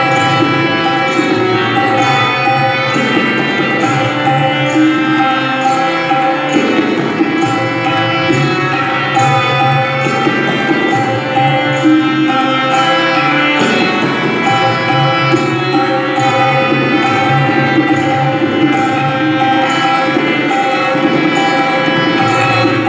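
Tabla played in a steady rhythmic cycle over a sustained melodic accompaniment with drone-like held tones, in Hindustani classical style.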